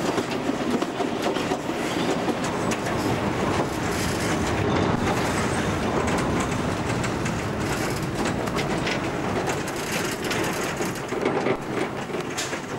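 Steyrtalbahn narrow-gauge passenger train running, heard from the carriage: a steady rumble with the wheels clicking and clattering over the rail joints and station pointwork.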